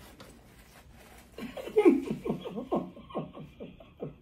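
A woman laughing hard in a run of about ten short bursts, each falling in pitch. It starts about a second and a half in and stops near the end.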